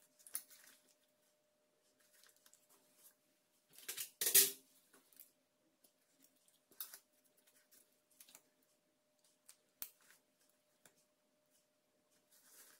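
Steel surgical instruments being handled: scattered clicks of forceps and hemostat ratchets and snips of surgical scissors, with a louder burst of rustling about four seconds in. A faint steady hum sits underneath.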